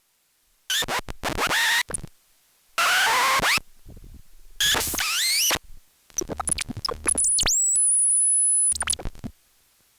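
Synthesizer audio, noisy with sweeping tones, cut in and out abruptly four times as a CV-controlled switch mutes and unmutes it. The last and longest burst carries a steady, very high-pitched tone.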